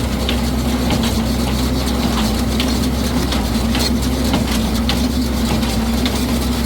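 A tractor's engine running steadily under load while it drives a New Holland 67 Hayliner square baler, with frequent short clicks and knocks from the baler's mechanism working through the hay.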